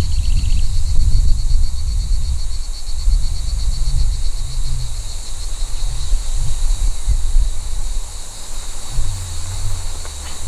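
Wind buffeting the microphone with a loud, gusty low rumble, over a steady, rapidly pulsing high-pitched insect trill, the chirring of grasshoppers in grass.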